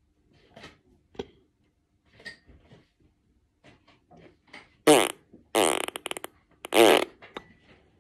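Three loud, fart-like sputtering noises in quick succession, starting about five seconds in, each a buzzing blast with a wobbling pitch; faint small knocks come before them.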